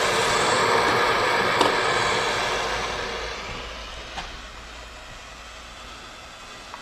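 Soldering torch flame hissing steadily, then dying away over a couple of seconds to a low background hum, with a couple of light ticks of metal.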